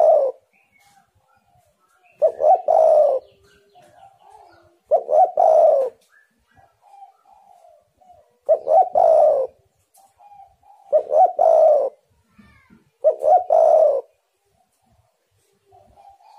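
Spotted dove (tekukur) cooing: five loud, low, two-part coo phrases, each under a second long and repeating every two to three seconds. Fainter, higher calls fill the gaps between the phrases.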